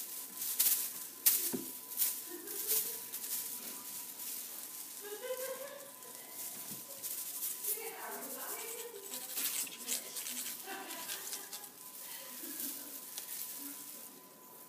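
Crinkling and rattling of a shiny tinsel wand toy as it is jiggled and batted at by kittens, with sharp clicks and rustles in the first two seconds.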